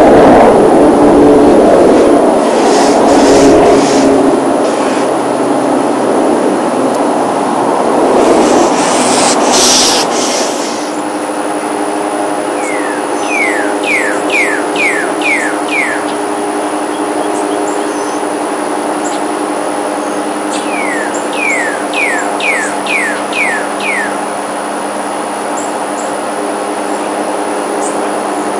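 Aircraft engine noise overhead, fading and dropping off about ten seconds in, leaving a steady hum. A songbird sings two runs of six or seven quick chirps over the hum.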